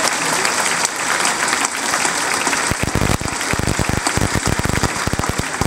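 An audience applauding, a dense patter of many hands clapping. From about halfway in, sharper claps close by stand out from the rest.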